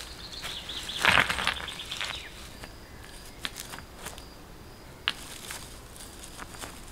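Dry leaf litter crunching as a person steps and crouches about a second in, then a few sharp clicks of stones knocked against each other as they are set in a ring on the forest floor. A high insect drone runs through the first two seconds.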